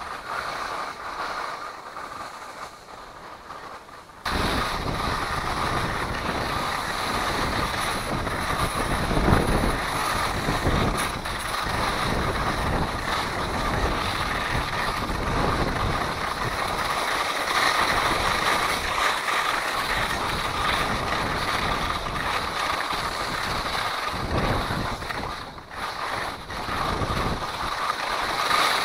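Wind rushing over the microphone, with skis sliding on snow as a traction kite tows the skier uphill. The rush jumps suddenly louder about four seconds in and stays steady after that.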